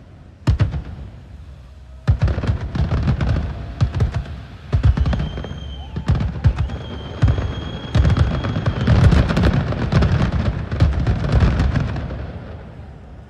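Aerial fireworks display: rapid booms and crackling bursts, building to a dense barrage in the middle and thinning out near the end. A high, steady whistle is held twice in the middle.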